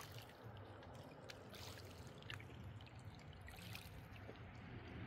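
Faint lapping of small waves at a lochside shore, with a few brief ticks.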